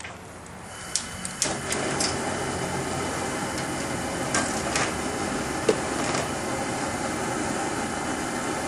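Food sizzling in hot oil in a stir-fry pan over a deep-fryer burner: a few clicks about a second in, then a steady sizzle that sets in suddenly, with occasional pops.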